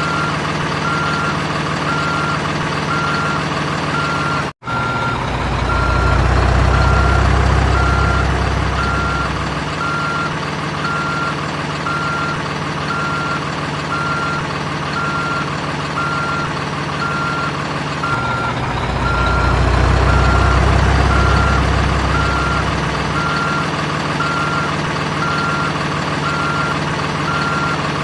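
Toy RC excavator's sound module playing a steady, evenly repeating reversing beep over a simulated engine hum, which swells louder twice. The sound drops out for an instant about four and a half seconds in.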